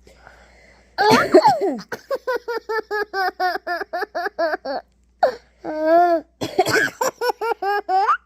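An adult coughs, and a baby answers with a long run of hysterical laughter in short, evenly spaced 'ha' pulses, about three or four a second. Near the end there is another cough, followed by more rapid baby laughter.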